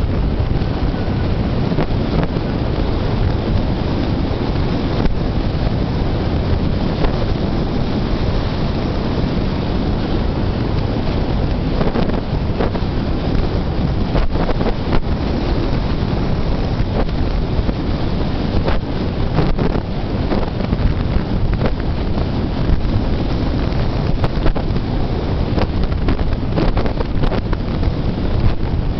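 Wind rushing and buffeting the microphone at the driver's window of a Hyundai Accent moving at about 45 mph, over steady road noise, with scattered short thumps.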